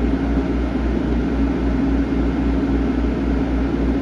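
Steady machine drone of a laser cutter's ventilation running, with a low pulsing hum underneath.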